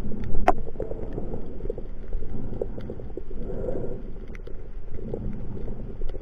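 Underwater sound picked up by a submerged camera: a muffled low rumble of moving water with scattered small clicks, a sharper click about half a second in.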